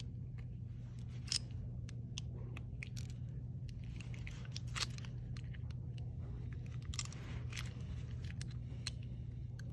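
Scattered light metallic clicks and scrapes of an Allen key turning the machine screws on a Graco MD2 valve's nose piece, snugging them down until they stop to seat the new front seals. A steady low hum runs underneath.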